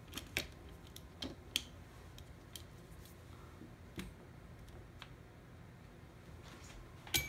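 Light clicks and taps of small objects handled on a workbench, scattered irregularly over several seconds, the sharpest one near the end.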